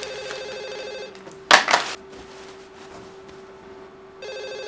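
A telephone ringing with an electronic ring: one ring lasting until about a second in, a pause, and the next ring starting near the end. A short, loud burst of noise comes about a second and a half in, over a faint steady hum.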